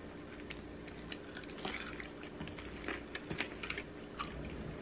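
Close-up chewing of battered, fried cheese curds: soft crunches and wet mouth clicks at irregular intervals.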